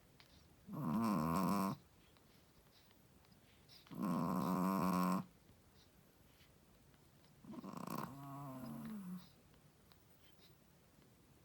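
Shih tzu snoring: three snores, one every three and a half to four seconds, each about a second long with a clear pitch. The last is somewhat longer and quieter.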